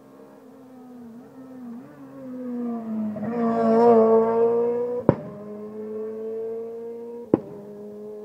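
A Renault Clio rally car's engine at high revs comes up at speed, growing louder, passes close about four seconds in and pulls away. Twice, at about five and seven seconds in, a sharp crack comes with an upshift, and the engine pitch drops each time.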